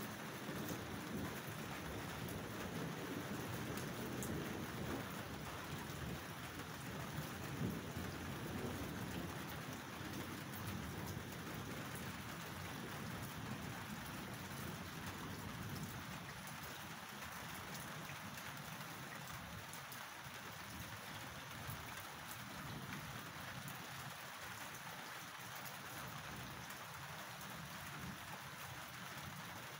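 Rain falling steadily, with a low rumble of thunder through the first half that dies away about midway.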